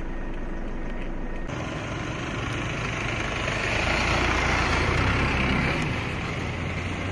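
Motor vehicle engine with road noise, swelling louder in the middle and easing off again, as a vehicle passing by.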